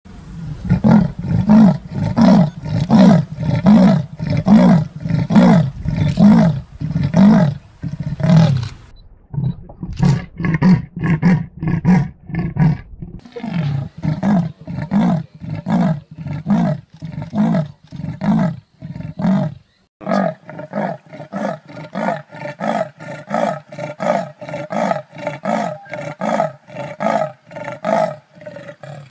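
Leopards giving their sawing roar: long series of evenly repeated strokes, roughly two a second, that break off and start again several times.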